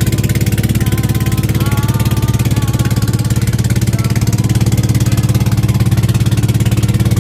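Engine of a small wooden outrigger fishing boat running steadily under way, a loud, fast, even chugging.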